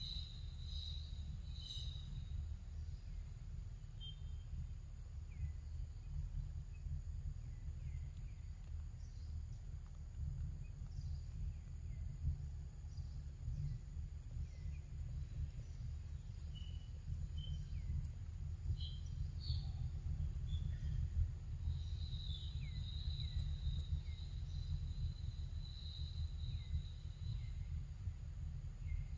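Forest ambience: a steady high-pitched insect drone, with short falling bird chirps scattered throughout and a low rumble underneath.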